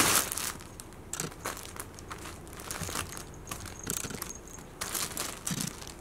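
Fabric of a cat play tent rustling in a string of short bursts as a kitten scrambles through it and paws at it; the loudest burst comes right at the start.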